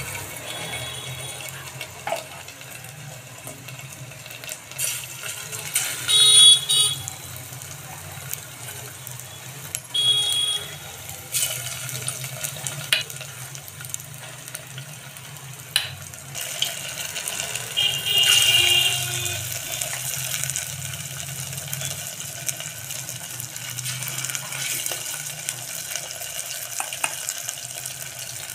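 Batter-coated chicken pieces deep-frying in hot oil in an aluminium pot: a steady sizzle and bubbling that flares up louder a few times, about 6, 10 and 18 seconds in, as more coated pieces go into the oil.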